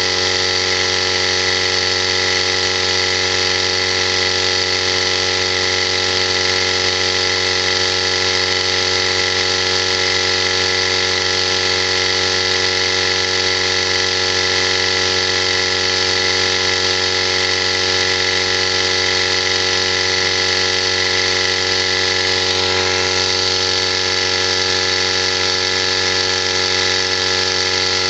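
Small electric pumps running with a steady, even hum.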